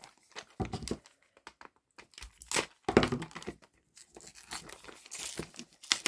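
Crinkly plastic packaging being handled and torn open: irregular rustling and crackling, with a few dull handling bumps about half a second in and again about three seconds in.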